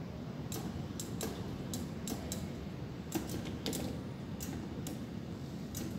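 Ice cream claw machine being steered: a dozen or so sharp, irregularly spaced clicks from the controls and the moving claw mechanism, over the machine's steady low hum.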